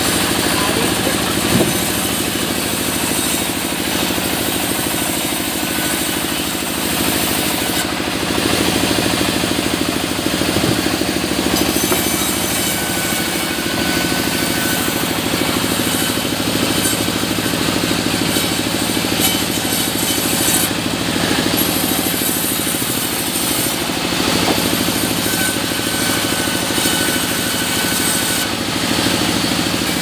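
Sawmill band saw running steadily, its blade cutting through mahogany logs as they are fed along the table, with a constant machine hum underneath.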